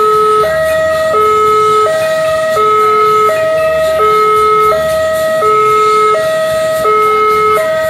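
Railway level-crossing warning alarm sounding a steady two-tone hi-lo signal, alternating between a lower and a higher note about every 0.7 seconds: the crossing is closed for an approaching train.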